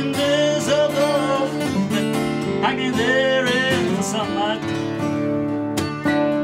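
Two steel-string acoustic guitars playing a folk song together, with a man singing over them. The voice drops out about four seconds in, leaving the two guitars.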